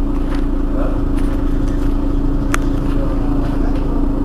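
Mercedes-Benz Citaro city bus engine idling steadily while the bus stands still, a constant low hum. There is a single sharp click about two and a half seconds in.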